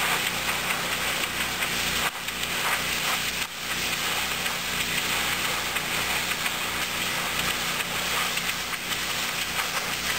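Pressure washer running during the final rinse of a cedar shake roof: a steady hiss of the high-pressure water jet over the constant hum of the washer's engine.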